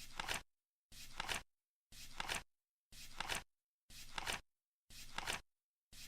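Flip-clock timer flipping once a second, seven flips in all. Each flip is a short flutter ending in a couple of sharp clacks, with dead silence between.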